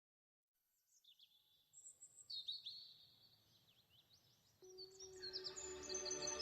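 Birds chirping in quick, short calls that fade in just under a second in. About four and a half seconds in, a held musical chord enters beneath them and swells.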